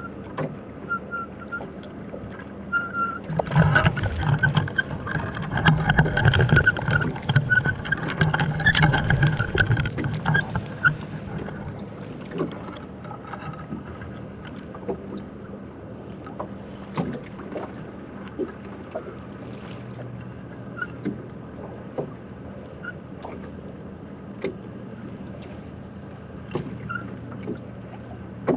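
Muffled water sloshing and scattered knocks and clicks around a camera lowered into the sea from a rowboat, with a louder, churning stretch from about three to eleven seconds in, over a steady low hum.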